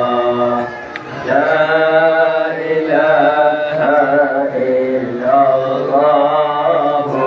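Men's voices chanting an Islamic devotional phrase in long, drawn-out repeated lines, with a short break about a second in.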